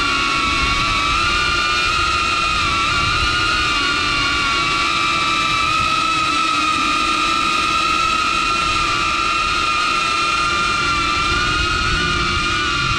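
DJI Avata FPV drone's ducted propellers whining steadily, heard from on board the drone, the pitch wavering slightly with throttle, over a low rumble of wind.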